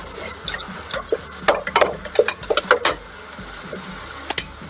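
A long wooden spoon stirring minced meat in a stainless steel pot, clacking and scraping against the pot's side. The knocks come thick for about three seconds, then once more near the end.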